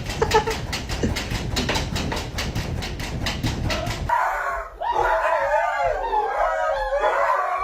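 Rapid, evenly spaced tapping for about four seconds, then a dog howling in a long, wavering call.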